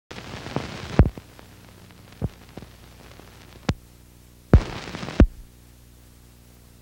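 Surface noise from an old soundtrack: two bursts of hiss broken by sharp pops and clicks, then a steady low hum from a little past the middle.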